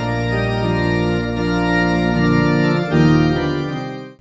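Organ playing sustained chords that change every second or so, fading out near the end.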